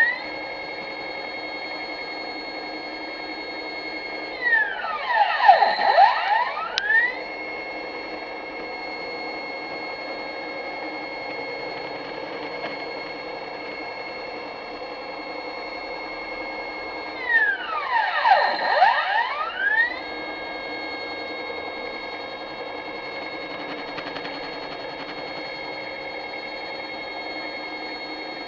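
Stepper motors of a homemade CNC machine whining at a steady pitch during a move. Twice, about five and eighteen seconds in, the whine grows louder and its pitch sweeps down and back up as the motors slow to a stop and speed up again.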